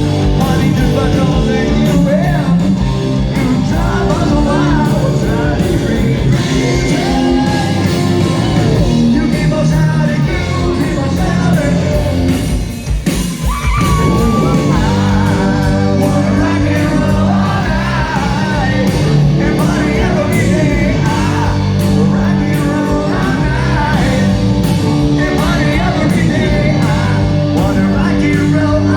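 Live rock band playing a song: loud drums, electric guitars and bass under a sung lead vocal, with shouted lines. The band drops out briefly about halfway through, then comes back in.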